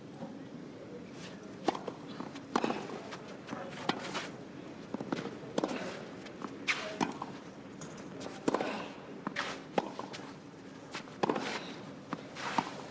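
Tennis ball struck back and forth by racket in a clay-court rally: a string of sharp hits, one every one to two seconds, with the players' footsteps scuffing on the clay between them.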